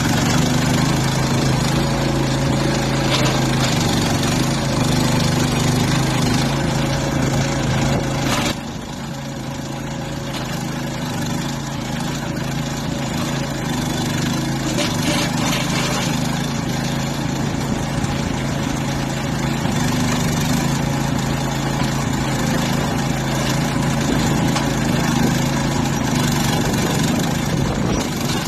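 NM-E10 PLUS mini excavator's engine running steadily. About eight and a half seconds in, its sound drops suddenly to a lower, softer note, then carries on steadily.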